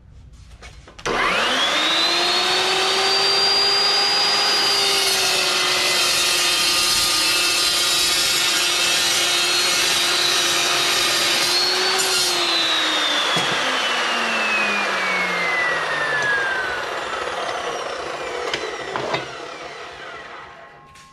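Evolution S380CPS metal-cutting chop saw starting up about a second in, its whine rising to speed, then cutting through steel pipe with a loud, steady cutting noise over the motor whine. About twelve seconds in the motor is switched off and the blade spins down with a long falling whine.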